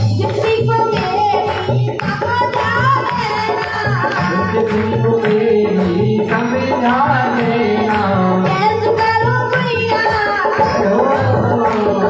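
A woman singing a Hindi folk song with keyboard and hand-drum accompaniment, the drum keeping a steady repeating beat under the melody.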